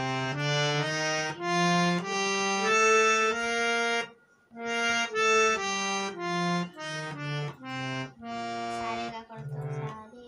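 Harmonium played as a simple melody of single held notes, with a short pause about four seconds in; the playing stops near the end.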